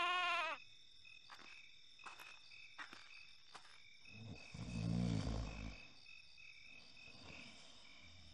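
Night-time ambience of crickets chirping steadily, with a few faint clicks. About four and a half seconds in, a single low snore rises and falls for about a second: the wolf sleeping.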